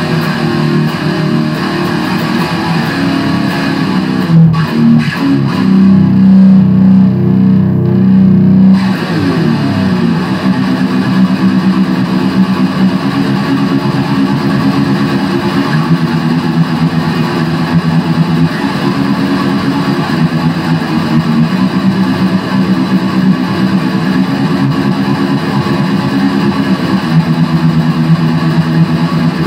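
Loud electric guitar, an Epiphone SG Special through a Line 6 Spider III amp, playing improvised heavy-metal riffs. From about four to nine seconds in, a low chord is held heavily, then the pitch slides down before the riffing picks up again.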